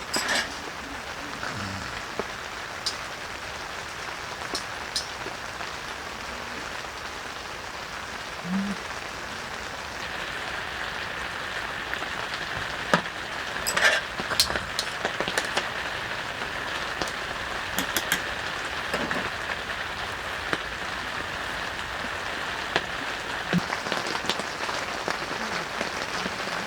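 Heavy rain falling steadily, with scattered sharp drip taps; it grows heavier about ten seconds in.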